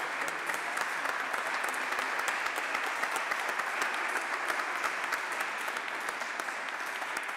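A small church congregation applauding: many hands clapping in a steady, dense patter that starts suddenly and holds without a break.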